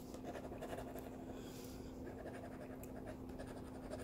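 Scratch-off lottery ticket being scratched off by hand: a steady run of quick, faint scraping strokes across the ticket's coating.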